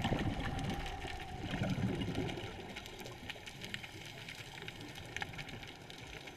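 Underwater scuba exhaust bubbles gurgling from a diver's regulator, in two bursts: one right at the start and one about two seconds in. Between and after them, a quieter steady underwater hiss with scattered faint clicks.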